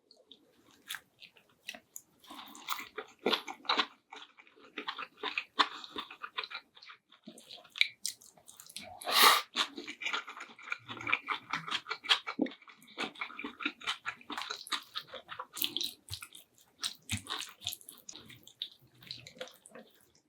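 Close-miked eating: a person chewing and biting food, with wet mouth sounds and many short clicks. One louder sharp crunch or knock comes about nine seconds in.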